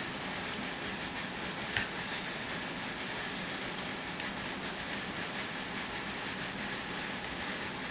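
Steady running noise of a workshop power tool, likely the drill boring candle holes through the copper-inlaid walnut, with a single sharp click about two seconds in.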